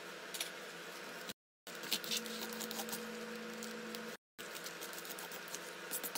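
Small clicks and taps from an aloe vera leaf being handled with gloved hands, over a steady low hiss. The sound cuts to dead silence twice, about a second in and about four seconds in, where the clips are joined.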